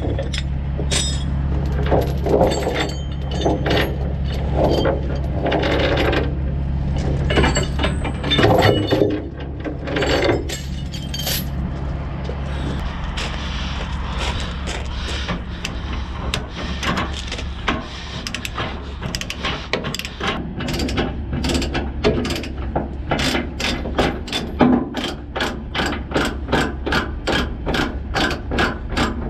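Load chains clanking and a ratchet chain binder being worked to release the tie-down chains, its pawl clicking in a steady run of about two to three clicks a second through the second half. A steady low engine hum sits under the clanking and fades out a little before halfway.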